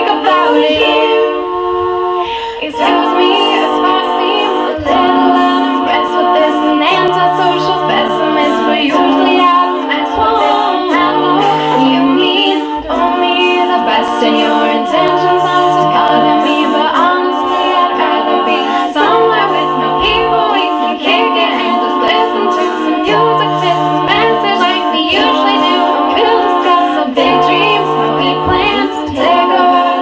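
All-female a cappella group singing: a solo voice over backing voices holding chords, with a low bass note that comes back about every four seconds.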